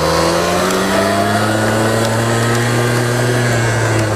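Small 50cc quad's engine running steadily under throttle, its pitch rising slightly at first and dropping a little near the end. The rider calls the little quad very slow and beat up.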